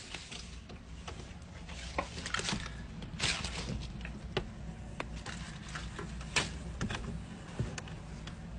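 Handling noise from a phone being moved about: irregular soft knocks and rubbing on the microphone over a steady low hum.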